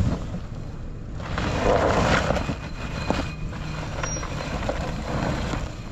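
A vehicle's engine running as it pulls forward over rough ground, with a louder rough, scraping stretch about one to two and a half seconds in.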